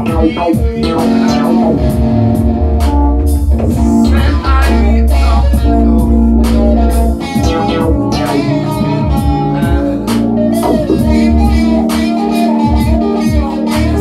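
Live electronic jam: electric guitar playing bending lead lines over held synthesizer chords and a deep bass, with a drum machine beat. The heaviest bass note drops away about halfway through.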